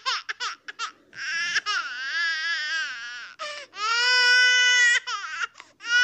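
A baby crying: a few quick sobs, then a long wavering wail, then a second long wail held at a steady pitch, broken by more short sobs before the next wail begins.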